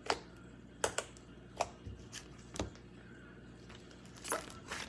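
Slime being squished and kneaded by hand, giving about six sharp clicks and pops at irregular intervals.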